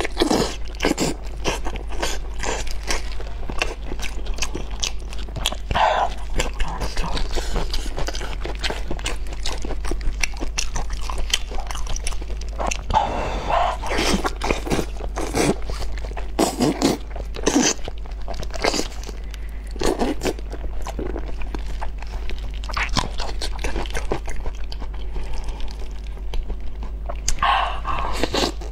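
Close-miked mouth sounds of eating braised pork knuckle by hand: repeated biting, smacking and chewing of the meat and skin, full of short clicks.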